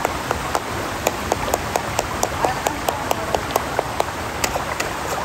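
Rapid, evenly spaced tapping, about four or five taps a second, over a steady hiss; the tapping stops near the end.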